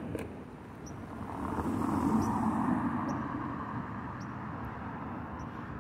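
A road vehicle passing by: its tyre and engine noise swells to a peak about two seconds in, then fades to the steady hum of traffic.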